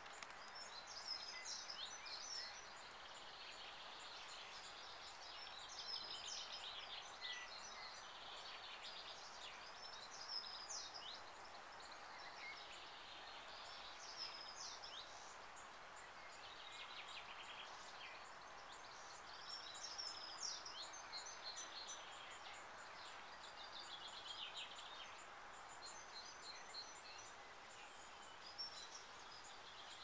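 Songbirds chirping and trilling in short phrases throughout, over a faint steady background hiss.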